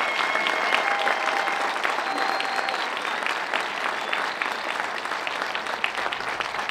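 Crowd applauding a speech with dense, steady clapping that slowly dies down.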